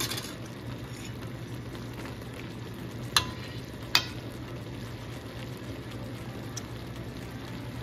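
Taro leaves in coconut milk simmering in an open pan, a steady soft sizzle over a low hum, with two sharp clicks about three and four seconds in. The coconut milk is still reducing toward the oily stage that finishes laing.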